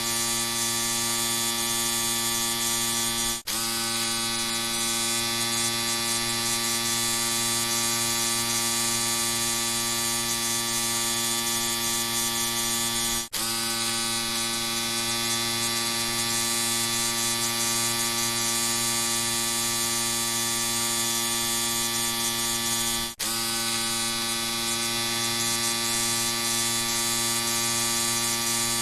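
Electric shaver running with a steady, high buzz, broken three times by a momentary dropout about ten seconds apart.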